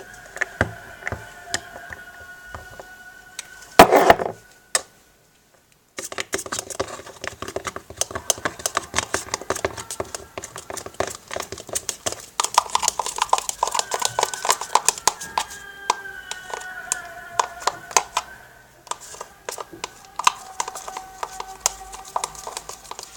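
Aerosol shaving foam sprayed in one short burst, then a utensil stirring the foam into slime glue in a container, with many quick clicks and squishes against the container.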